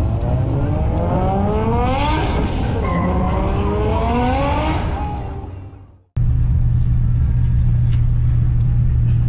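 Several cars revving and accelerating away, their engine notes rising in pitch, fading out about six seconds in. After a sudden cut, the Ford F-truck's engine drones steadily at one low pitch, heard from inside the cab.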